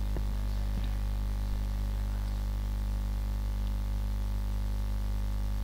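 Steady electrical hum and buzz of mains hum in the recording, with a couple of faint clicks in the first second.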